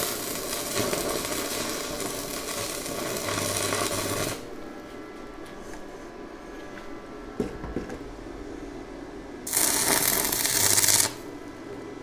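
Electric arc welding, the arc crackling as a bolt is welded onto a steel angle-iron bar: one weld of about four seconds, a pause, then a second weld of about a second and a half near the end.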